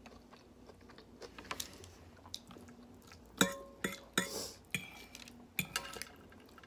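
Chewing of a mouthful of salad, then a metal fork clinking and scraping against a plate several times from about three and a half seconds in. The plate rings briefly after the sharpest strikes.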